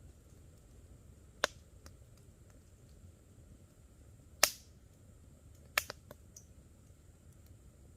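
Wood campfire crackling, with sharp pops about a second and a half in, at four and a half seconds (the loudest) and near six seconds, and fainter ticks in between.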